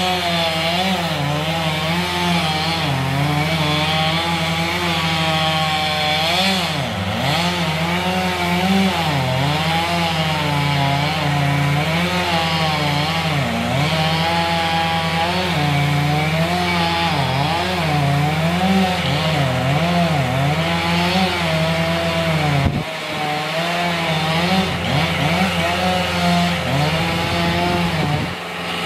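Two-stroke chainsaw cutting into a pine tree, its engine note rising and falling continually as the bar bogs and frees in the wood, with a brief drop in level near the end.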